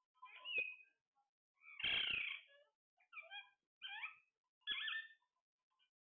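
Caged parakeets, Alexandrine and ring-necked, calling: a string of short chirps, with louder squawks about half a second in, around two seconds in and near the five-second mark. A couple of sharp clicks come with the first and last of these.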